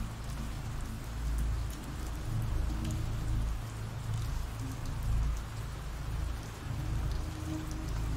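Steady rain falling, a continuous hiss of drops, over low, sustained background music that swells and fades.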